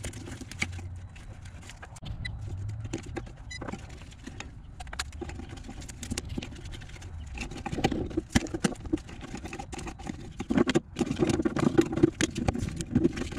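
Irregular clicks, knocks and clatter of hand tools and metal parts being handled while wiring and bolts are worked on. It gets busier and louder in the last several seconds.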